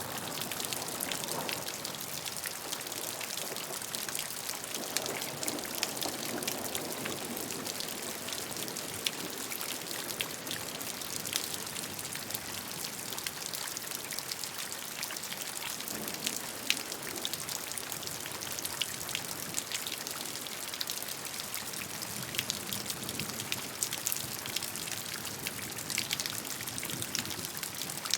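Steady rainfall: an even hiss of rain with many close, individual drops pattering on a hard surface and a faint sound of running water underneath.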